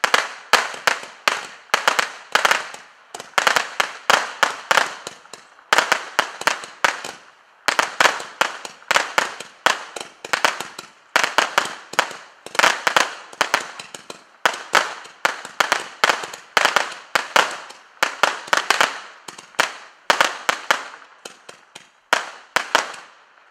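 Miracle Fireworks EMP, an 84-shot multi-ball firework, firing its shots one after another: a steady run of sharp pops, several a second, broken by a few short pauses and dying away near the end.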